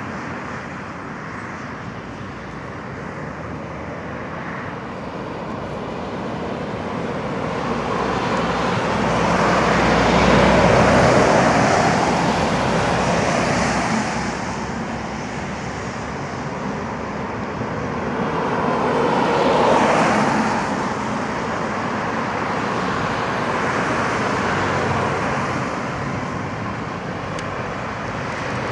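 Road traffic of lorries and cars driving round a roundabout, a continuous mix of engine and tyre noise that swells twice as vehicles pass close, about ten and twenty seconds in.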